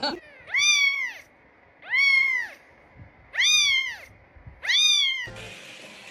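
A cat meowing four times in a row, evenly spaced. Each meow is loud and drawn out, rising and then falling in pitch.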